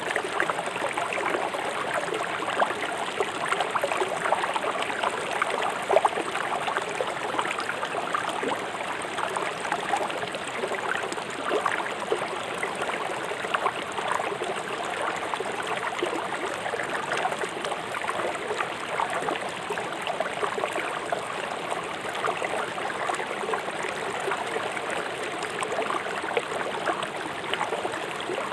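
A fast-flowing river rushing over stones: a steady splashing and gurgling of water.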